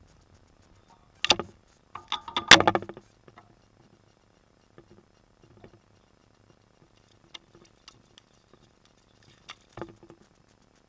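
Bowfishing shot: a sharp snap a little over a second in, then a louder burst of splashing and rattling just after. Scattered light clicks follow, and near the end there is another brief splash as an arrowed gar thrashes at the water's surface.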